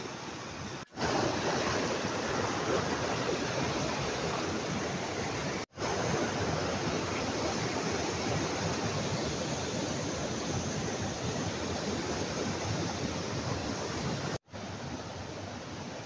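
Mountain stream rushing over boulders and small cascades, a steady noise of running water. It drops out for an instant three times, about one, six and fourteen and a half seconds in, at cuts in the recording.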